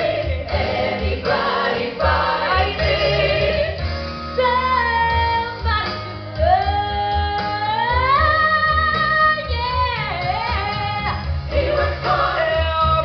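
Live rock band with a female lead singer on a headset microphone. About four seconds in the beat drops back and she holds long high notes that slide upward, then the full band with drums comes back in near the end.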